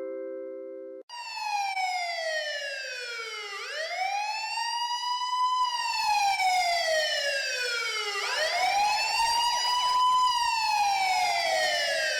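The last notes of a mallet-chime phone tone ring out and stop about a second in, then a siren-style phone ringtone starts: a wailing tone that falls slowly and rises back again, one fall-and-rise every four to five seconds.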